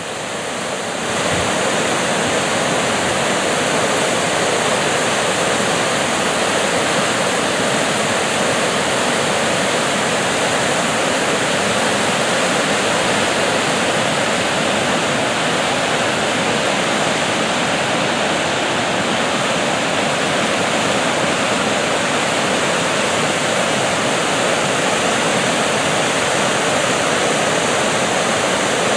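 Flooded stream swollen by a thaw and downpour, rushing as whitewater rapids over rocks: a steady roar of water that cuts in suddenly and holds even throughout.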